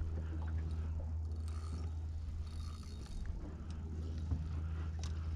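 A steady low hum, with faint small sounds over it.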